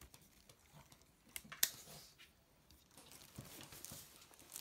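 Faint handling noises from a plastic Robozuna robot action figure, with two sharp clicks about a second and a half in.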